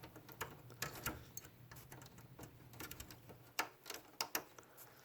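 Faint, irregular light clicks and taps of hands handling an old TV's chassis and parts.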